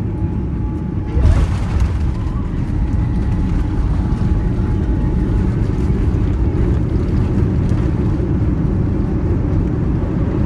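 Boeing 787-9 cabin during landing: a sudden jolt about a second in as the wheels touch down, then the steady heavy rumble of the landing roll.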